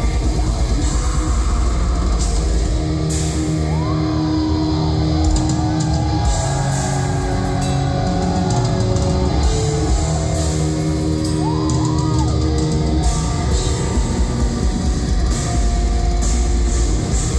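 Black metal band playing live and loud through the venue PA: distorted electric guitars over a drum kit. The drumming is very fast and dense at the start and again near the end, with held guitar notes and rising and falling bends in between.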